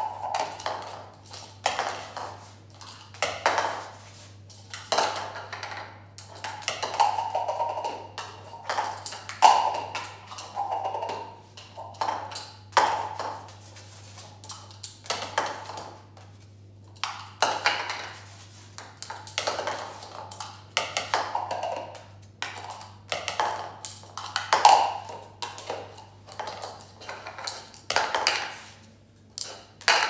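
Small plastic stacking cups knocking and clattering on a tile floor as a cockatoo picks them up in its beak, carries and drops them. The taps come irregularly, some with a short ring.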